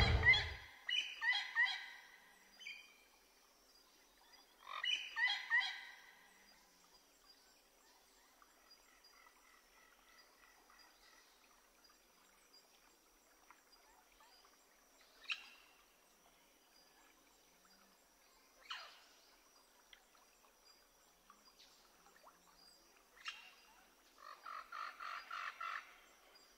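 Birds calling outdoors in a few bursts of quick repeated chirps, near the start and again near the end, with a faint steady high tone underneath and a few faint clicks between.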